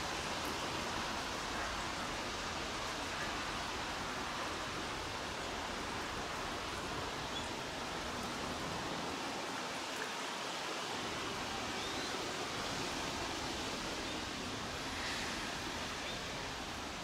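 Steady, even hiss of light rain falling outdoors, with no distinct train noise standing out.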